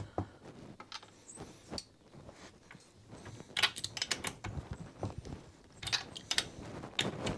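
Small metallic clicks and light rattles of a spark plug being screwed by hand into the cylinder head of a 50cc scooter engine, with the tools and parts handled around it. The clicks come in scattered clusters, busiest about halfway through and again near the end.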